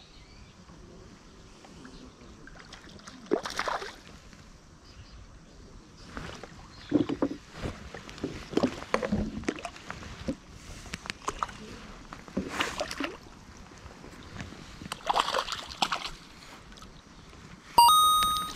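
A hooked crucian carp splashing at the water's surface in several separate bursts as it is played on a pole rod and drawn to the landing net. Near the end a short bright chime rings out.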